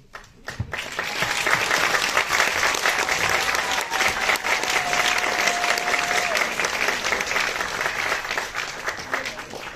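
Theatre audience applauding: the clapping swells in about half a second in, holds steady, and thins out near the end. A single held note rises faintly above the clapping for a few seconds in the middle.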